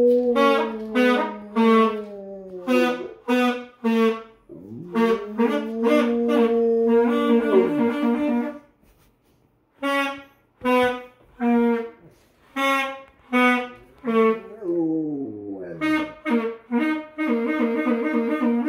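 A saxophone played in short repeated notes while a Rottweiler howls along in long howls that slide up and down in pitch. Both stop for a moment about halfway through.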